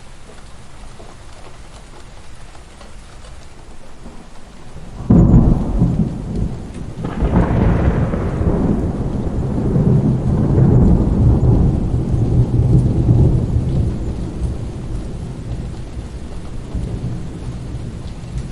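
Light steady rain, then about five seconds in a sudden loud thunderclap, a second crack about two seconds later, and a long low rumble of thunder that slowly fades.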